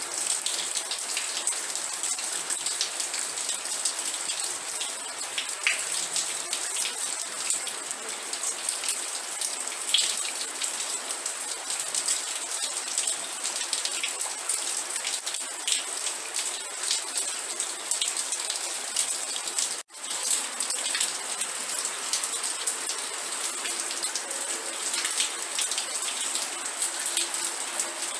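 Steady rain, an even hiss with many individual drops ticking through it. It cuts out for a split second about twenty seconds in, then resumes unchanged.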